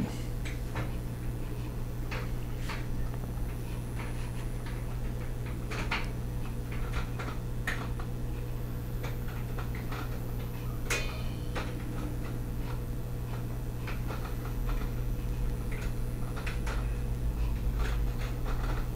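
Light, scattered clicks and ticks of a powder measure and long charging die being turned by hand into the turret of a reloading press, metal and plastic parts touching, with one sharper metallic click about eleven seconds in. A steady low hum runs underneath.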